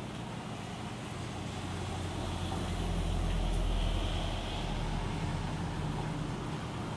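Steady rain with a low rumble that swells about two seconds in, peaks near the middle and fades away by about five and a half seconds.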